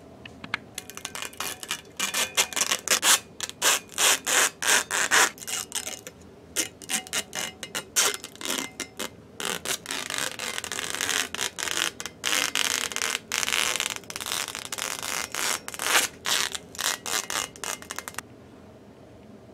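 Thin clear plastic film and sheeting crinkling and rustling as it is handled, a quick, irregular run of crackles that stops suddenly near the end.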